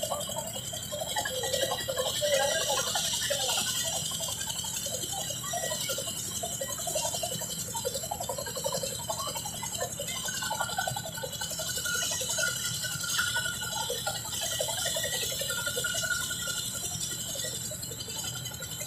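Boeing CH-47 Chinook helicopter running on the ground, its tandem rotors turning: a steady low drone under a steady high whine and hiss, with a crowd's voices scattered through it.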